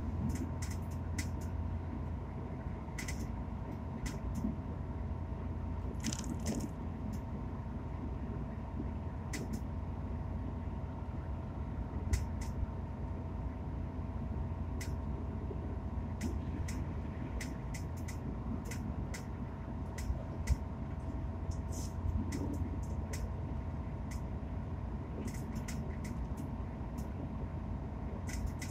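Cabin noise inside a Hitachi Class 802 bi-mode train coach running at speed: a steady low rumble with a few steady whining tones. Frequent sharp clicking rattles come from the brand-new coach, a sign of poor build quality.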